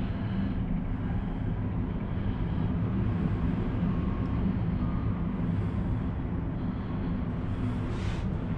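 Steady low rumble and hum inside a moving cable car gondola as it travels along its cable, with a short hiss about eight seconds in.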